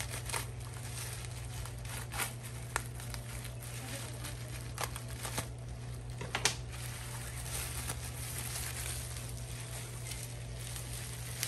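Bubble-wrap plastic mailer crinkling and rustling as it is cut open with scissors and pulled apart, with several sharp crackles scattered through the first half.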